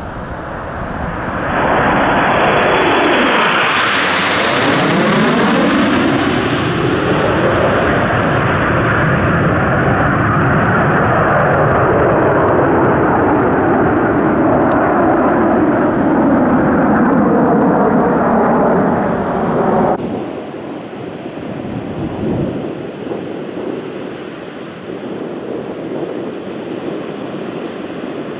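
A formation of Aermacchi MB-339 PAN jet trainers flying past low, their jet engines building to a loud whine and rush about two seconds in, shrillest about four seconds in, with the sound sweeping as the jets pass. It cuts off abruptly about twenty seconds in to a quieter, more distant jet noise with wind.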